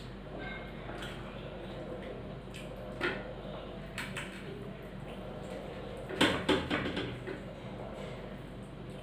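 Table sounds of a meal eaten by hand: a few light knocks and clinks of plates and steel bowls, with a louder cluster of them about six seconds in, over a steady low hum.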